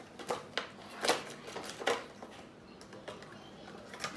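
Fidget toys and their plastic packaging being handled: a handful of short clicks and rustles at irregular intervals.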